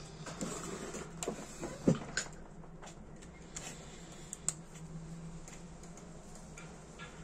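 A few sharp clicks and taps from small objects being handled on a workbench, the loudest about two seconds in, with a couple of fainter ones later, over a steady low hum.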